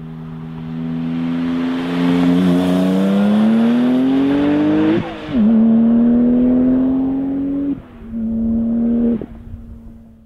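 Modified Porsche 996 911 Turbo's twin-turbo flat-six at full throttle as the car speeds past, its engine note climbing steadily. The pitch drops abruptly about halfway through, then climbs again. The note breaks off twice near the end and fades away.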